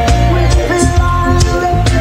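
Live reggae band playing: a heavy bass line under a steady drum beat of about two hits a second, with held notes and a woman's backing vocal.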